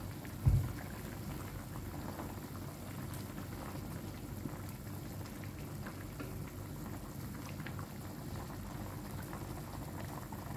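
Fish and midin fern soup bubbling steadily in an uncovered aluminium wok, with a wooden spatula stirring and turning the fish through the broth. A single low thump about half a second in.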